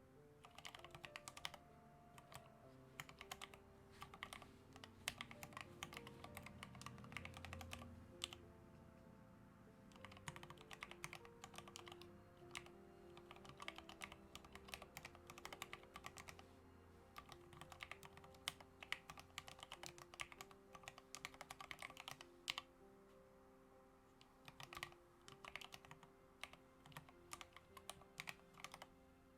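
Typing on an OLKB Planck mechanical keyboard with Gateron Ink Black switches and Gabriele 2000 keycaps: runs of quick key clacks, with a couple of short pauses, over soft background music.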